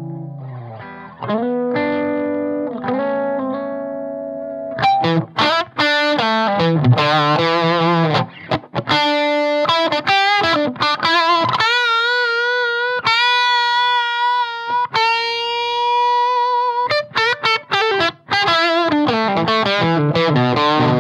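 Electric guitar played through a Marshall valve amp pushed into saturation by a clean boost pedal. A chord rings out and fades, then picked riffs, then a lead line of held, bent notes with wide vibrato in the middle, and chords again near the end.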